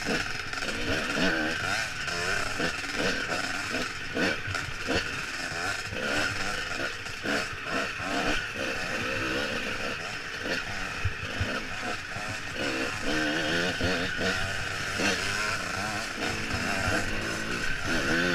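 Dirt bike engine revving up and down continuously as it is ridden over rough trail, heard from a helmet-mounted camera, with frequent knocks and rattles from the bumps.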